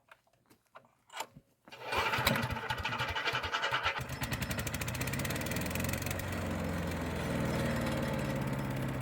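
Small gasoline engine of a newly assembled wood chipper started for the first time: a few light knocks, then about two seconds of cranking before it catches and runs steadily.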